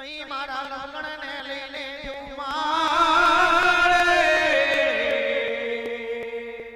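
A folk song sung in a long, heavily ornamented held line with a wide wavering pitch, over a steady drone and faint percussion ticks. It starts abruptly and grows louder about two and a half seconds in.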